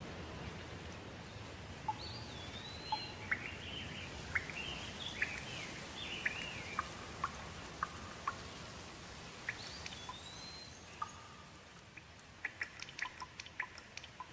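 Rainforest ambience: a steady hiss with birds calling in short chirps and whistled notes that glide up and down through the first half, and again about ten seconds in. Near the end a quick flurry of short, sharp ticks or drips.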